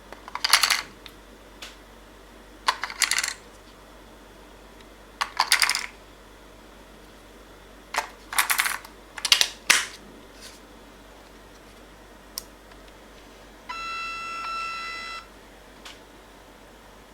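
AA batteries clicking and rattling as they are loaded into a Pixel X800N speedlite's battery compartment, in five short bursts of metallic clicks. Near the end the flash gives a steady electronic tone of about a second and a half as it powers up.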